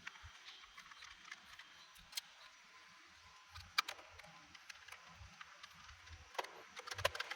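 Scattered light clicks and taps of a socket wrench and a bolt being fitted, with a quick run of clicks near the end.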